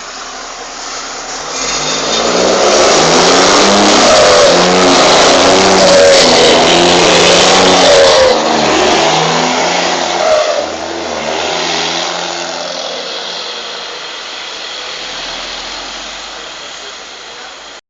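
Heavy truck's diesel engine revving loudly as it drives past. It builds over the first few seconds, stays at full strength for several seconds, then fades away slowly.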